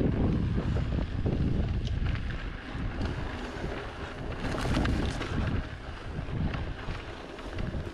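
Wind buffeting the microphone while riding an electric mountain bike, a rough low rumble that swells and fades, with scattered clicks and rattles from the bike and trail.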